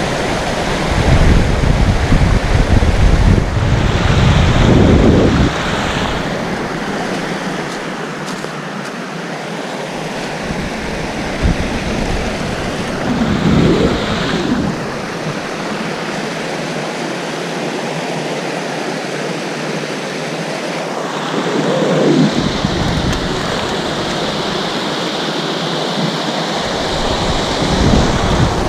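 Waterfall rushing steadily, a loud even wash of falling water. Low rumbles of wind on the microphone come in the first few seconds and again a few times later.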